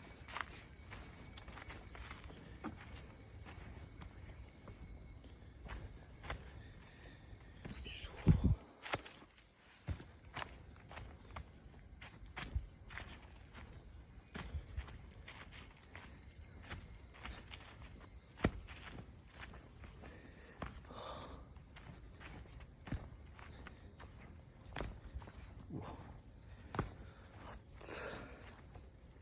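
A steady, high-pitched insect chorus with footsteps on a forest path, heard as many short irregular steps. There is one louder knock a little over eight seconds in.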